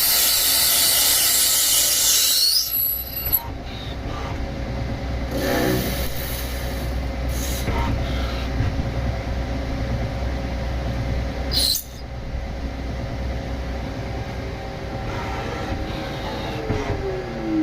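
Metal-cutting machining on a CNC lathe making a wing nut. A loud, high-pitched cutting squeal lasts for the first two and a half seconds. The machine then runs steadily with a hum and a few short cutting noises, and a tone falls in pitch near the end.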